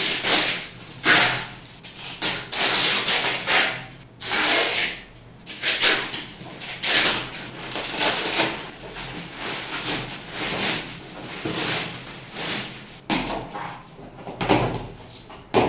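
White plastic outer sack rustling and scraping in irregular bursts as it is dragged up and off a long cardboard box, with a sharp knock near the end.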